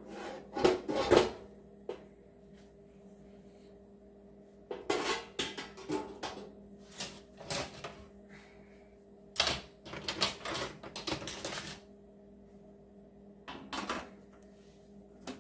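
Wire-mesh fry basket of a Farberware deep fryer clattering and clinking against the fryer's metal pot in several bursts of rattles and clicks as it is handled and settled in. The lid is set on with a few clacks near the end.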